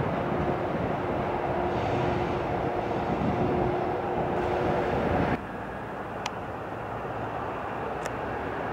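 Freight train of tank wagons rolling past: a steady rumble with a held tone. About five seconds in the sound drops suddenly to a quieter rumble, with two faint ticks near the end.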